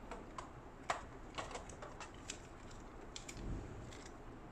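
Light, scattered clicks and taps of small objects being handled, with a soft rustle about three seconds in.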